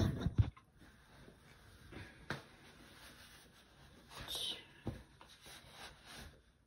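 Handling noises: a sharp knock at the start, then a few soft clicks and a short rustle of a cloth bath towel being handled about four seconds in.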